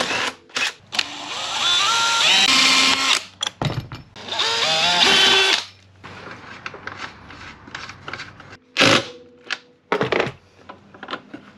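Cordless drill run in two bursts of about two seconds each, its pitch climbing within each burst while it works at a ski's suspension hardware. Lighter clicks follow, with a couple of sharp knocks near the end.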